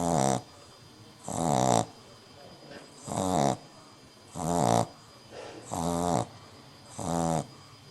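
French Bulldog puppy snoring in her sleep: a pitched snore on each breath, about one every one and a half seconds, six in all.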